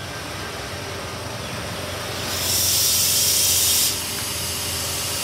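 Electric passenger train standing at the platform, its steady low hum broken about two and a half seconds in by a loud burst of compressed air hissing out for about a second and a half, which then cuts off sharply.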